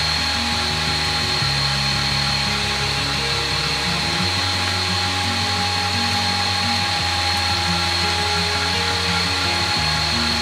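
A Kambrook electric stand mixer running steadily, its motor whining as the beater turns through cake batter, under background music with a bass line.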